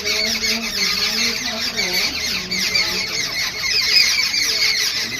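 A group of babblers calling in a continuous chatter of quick, overlapping high notes, which the uploader takes for an angry mood.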